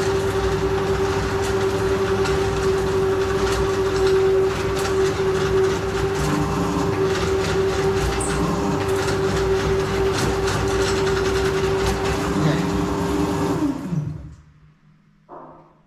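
Electric drain-cleaning spiral machine running in forward rotation, a steady motor hum with the spinning spiral cable rattling as it is worked against a blockage in the pipe. Near the end the motor winds down and stops.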